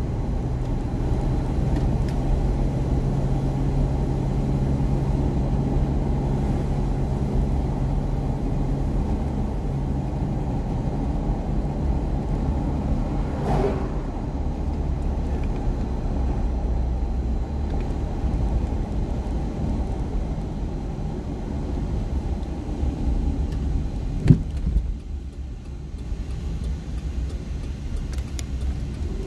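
Car cabin noise while driving: a steady low rumble of tyres on the road and the engine. A single sharp knock comes about 24 seconds in, and the rumble drops as the car slows.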